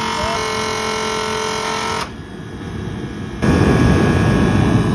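Fuel-fired forced-air space heater running. First its fan motor gives a steady whine with a hum; this drops away about two seconds in. About a second and a half later the lit burner comes in as a loud, dense rushing noise of flame and fan.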